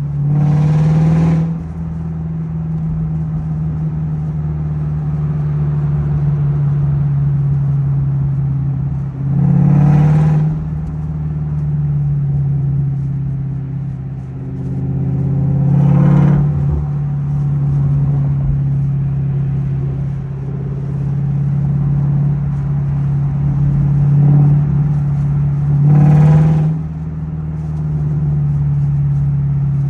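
2004 Ford Mustang GT's 4.6-litre V8 heard from inside the cabin while driving: a steady low exhaust drone, with four short, loud throttle revs of about a second each.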